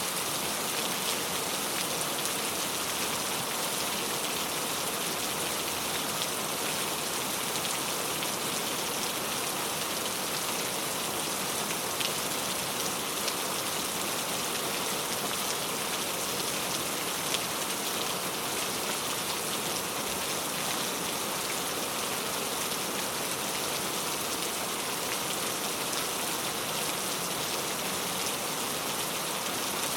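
Heavy rain falling steadily: a dense, even hiss of rain with faint scattered drop ticks.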